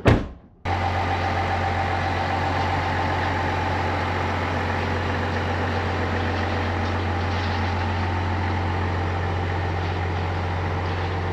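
A thump at the very start, then a pickup truck's engine idling steadily with a strong low hum.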